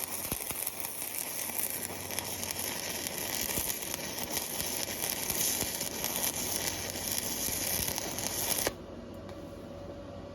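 Welding arc crackling and sizzling steadily, then cutting off suddenly near the end as the arc is broken, leaving a faint steady hum.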